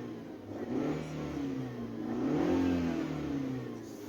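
Chevrolet Spark's S-TEC II 16-valve petrol engine revved in slow swells, its pitch rising and falling twice, with the engine warm and its thermostat open.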